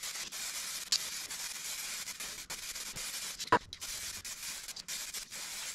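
Aerosol spray can spraying clear coat onto motorcycle bodywork: a steady hiss broken by a few brief stops between passes, with a short click about a second in and a sharper noise about three and a half seconds in.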